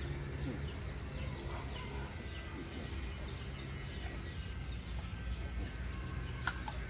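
Birds chirping in many short, falling calls over a low steady hum.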